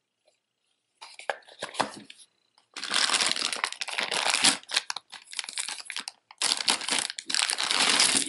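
Crinkly wrapping being crumpled and pulled open by hands to get at beaded necklaces, in two long stretches of loud crackling, after a few light clicks of the items being handled.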